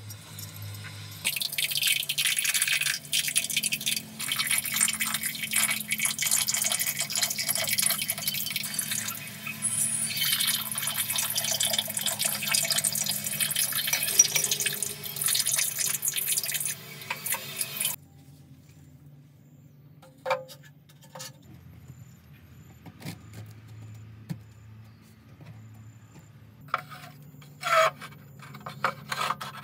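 Water running and splashing steadily for most of the stretch, then cutting off abruptly. It is followed by quieter light clicks and knocks.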